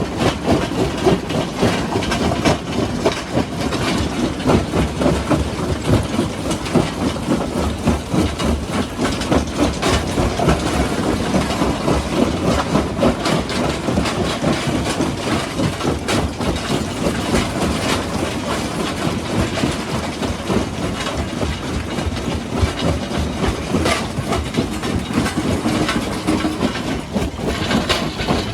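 Rock crusher running under load, with a steady dense clatter and grinding of rocks being broken, full of rapid irregular knocks.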